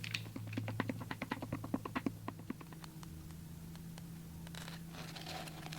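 Rapid light clicks, about seven a second, of a stick stirring epoxy resin in a plastic mixing cup. They stop about two and a half seconds in, leaving a faint steady hum.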